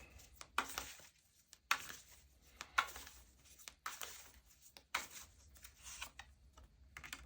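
Tarot cards being shuffled and handled: irregular soft snaps and rustles as cards riffle and slap together, ending in a card being drawn.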